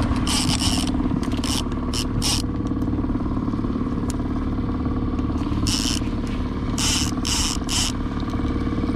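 Outboard motor running steadily at trolling speed, with short bursts of hiss over it several times.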